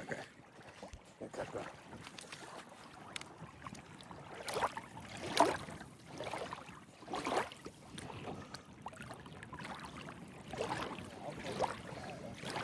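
Water splashing and sloshing in short, irregular swishes a second or more apart, the loudest about five seconds in.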